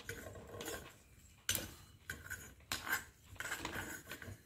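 A tomato being cut by hand with a knife and the pieces dropped into a steel pot of water, heard as several sharp clicks and light clatters.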